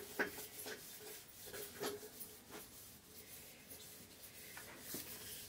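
Fingers scraping wet ground spice paste off a flat stone grinding slab: a run of short scrapes and light ticks, sparser in the second half.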